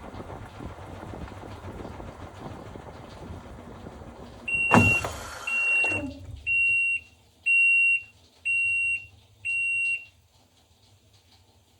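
Top-loading washing machine running, then stopping with a clunk about halfway through. It then gives six short beeps at one pitch, about one a second, the signal that the wash cycle has finished.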